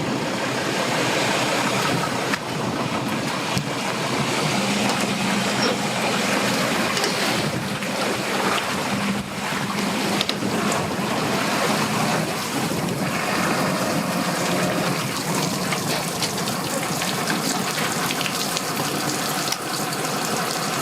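Steady rushing noise of strong wind and choppy lake water splashing at a boat ramp. A low, steady hum joins in for several seconds in the middle.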